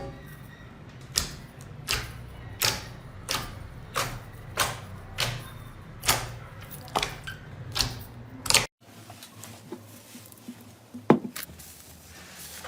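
Slime being squeezed and poked by hand, making a regular run of sharp clicks and pops, roughly one every two-thirds of a second. The clicking cuts off abruptly near the two-thirds mark, and a quieter stretch follows with a single click.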